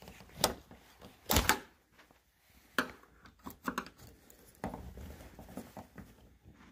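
Flathead screwdriver prying at a plastic push-pin clip of a car door's weather strip against the metal door frame: a handful of sharp clicks and scrapes, the loudest about a second and a half in.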